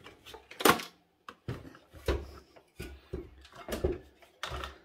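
Irregular short knocks, clicks and rattles of a desktop PC's sheet-metal case and plastic parts being handled as an IDE ribbon cable is worked loose. The loudest knock comes a little under a second in.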